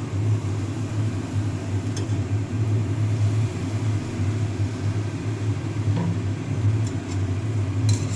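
A steady low rumbling hum, with a few faint clicks of utensils against the pan about two, six and eight seconds in.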